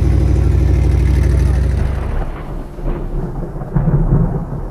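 Vehicle engine running steadily with a low, even drone that drops away about two seconds in, followed by an uneven low rumbling.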